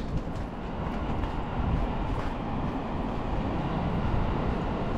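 Steady low rumble of vehicles passing, with no distinct events.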